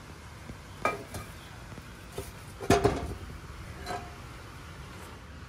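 A few separate metal clinks and clunks as a heavy brake rotor and hub is turned over and set down on a metal bench and a steel punch is handled, the loudest nearly three seconds in, some of them ringing briefly.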